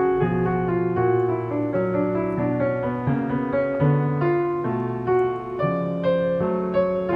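Background piano music: a melody of single notes moving over held low notes.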